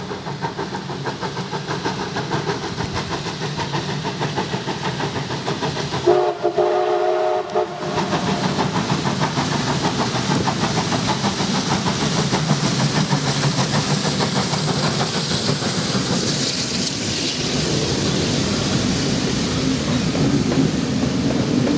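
Steam locomotive No. 620 working toward and past, its exhaust beating in a steady rhythm and growing louder as it nears. About six seconds in it blows its steam whistle for about a second and a half. Near the end the passenger coaches roll past.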